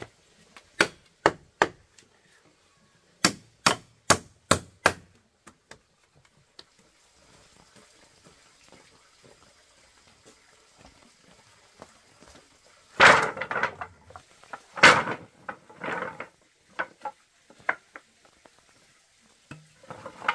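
Sharp strikes on wood in two quick runs, three then five, about two and a half a second, as in hammering or chopping. After a quiet stretch come a few louder, longer clattering, rustling bursts.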